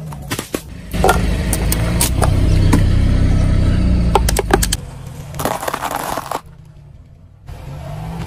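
A car tyre rolling over and crushing plastic-wrapped ice pops: sharp crackles and pops of the plastic, then the car's engine and tyre running with a loud low rumble. After that come a short noisy burst and a quieter stretch.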